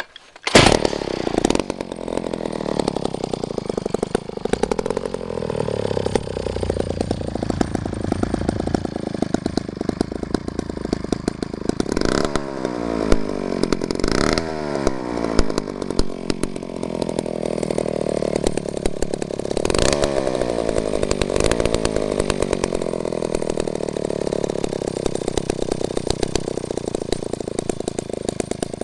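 Vintage McCulloch 1-50 two-stroke chainsaw engine firing up about half a second in and running steadily, revved up several times with the pitch falling back after each rev.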